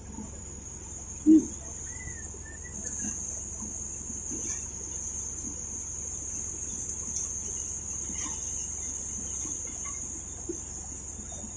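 Paddy thresher running steadily while rice bundles are fed into its drum, with a steady high-pitched whine over a low hum. A single short loud knock comes about a second in.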